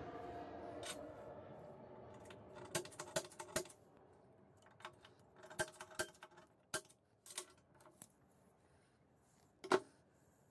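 Sharp metallic clicks and clinks, about a dozen at irregular spacing, from a steel ball-bearing drawer slide and a metal punch being handled against a welded steel tube frame on a steel welding table; the loudest clink comes near the end. A steady mechanical hum fades away over the first few seconds.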